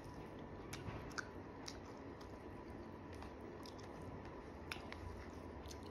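Close-up chewing of a mouthful of rice, with scattered soft wet mouth clicks and smacks.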